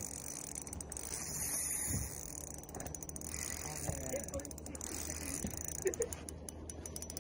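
Daiwa Caldia LT spinning reel being cranked to retrieve a jig, its gears turning steadily, over a faint steady low hum.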